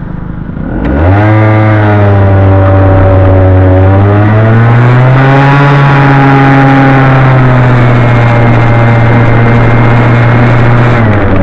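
Honda Gyro Canopy scooter's two-stroke engine through a Moto Repair Galuz II expansion-chamber exhaust, pulling away under throttle. About a second in the revs rise sharply and climb again around four to five seconds in, then hold steady and drop back near the end.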